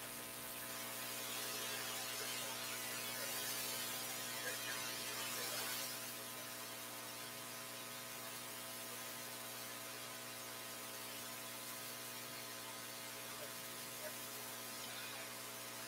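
Steady electrical mains hum with many evenly spaced steady tones, over a faint hiss that swells slightly from about one to six seconds in.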